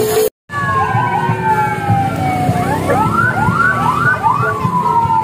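Electronic vehicle siren on a mosque's operational minivan: slow falling wails, broken about three seconds in by a quick run of about five short rising yelps, then a falling wail again.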